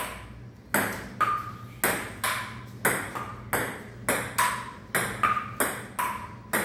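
Table tennis rally: the ping-pong ball alternately bouncing on the table and being struck by the paddles. It gives a quick, even run of sharp pocks, about two to three a second, some with a short ringing ping.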